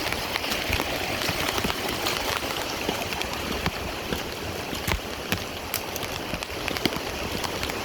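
Storm runoff floodwater running in a steady rush as it pours through a backyard fence, with scattered splashes and drips.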